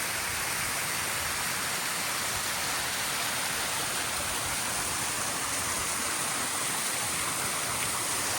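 Waterfall pouring down off a mountainside into a creek: a steady, even rush of falling water.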